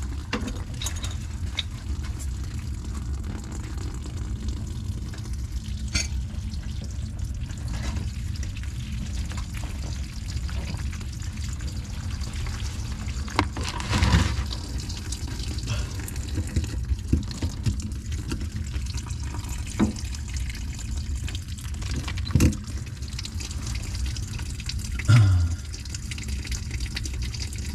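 Water running steadily, with a few sharp knocks along the way.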